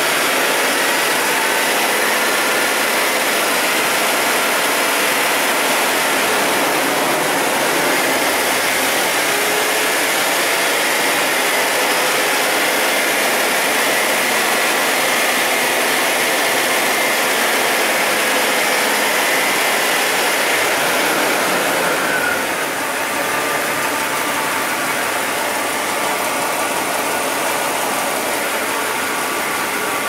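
Jeep 4.0-litre inline-six engine running steadily on a newly fitted crankshaft position sensor, with no misfires counted. About 22 seconds in the sound drops a little, with a short fall in pitch.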